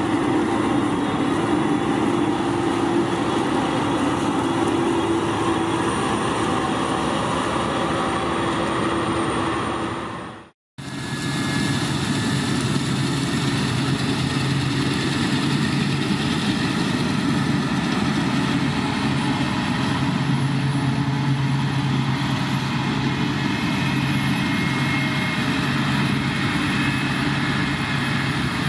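Engine of heavy harvest machinery running steadily. About ten and a half seconds in the sound cuts off abruptly, then resumes with a lower steady hum.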